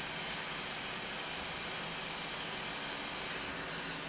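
Dental suction aspirator running with a steady, even hiss while the root canal is rinsed.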